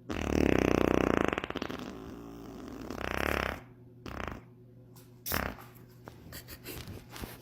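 A human fart sound: a loud, buzzy, rapidly fluttering fart lasting about a second and a half, followed around three seconds in by a shorter, breathier sound and a few faint knocks.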